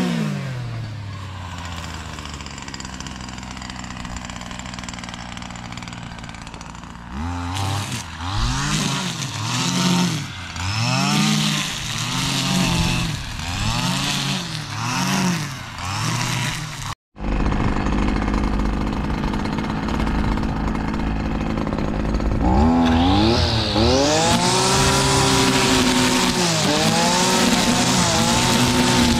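Petrol brushcutter with a nylon line head, its small engine revving up and dropping back over and over, about once a second. After a brief cut-out, near the end it runs at steady high revs with a loud hiss of the line cutting weeds.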